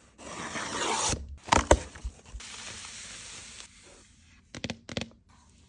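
Makeup packaging being handled and opened: a rough rustle or tear of paper or plastic lasting about a second, two sharp knocks, then a quieter scraping and a quick cluster of clicks near the end.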